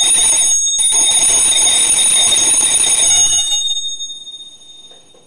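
Altar bells shaken at the elevation of the consecrated host: a bright, jangling ring with a short break under a second in. It stops after about three and a half seconds and dies away.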